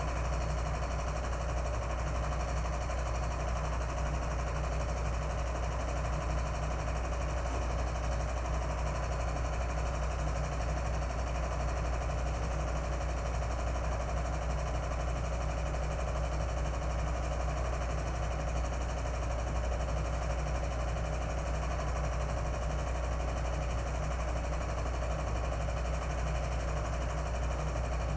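A 16mm film projector running: a steady whirring with a strong low hum that never changes or stops.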